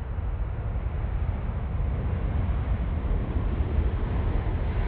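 Boeing 777 rolling out on the runway after touchdown with its thrust reversers open, a steady low jet-engine rumble that grows slightly louder toward the end.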